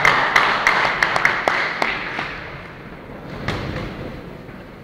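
Audience applauding in a large hall, with single sharp claps standing out. It dies away over about the first three seconds.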